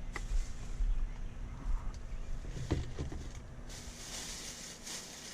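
Handling noise as an outboard motor is taken out of its cardboard box: low bumps and a few knocks, then rustling packaging from a little under four seconds in.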